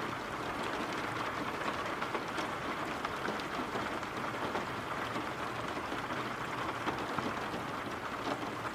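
Steady rain ambience: an even hiss of rainfall with scattered faint drip ticks.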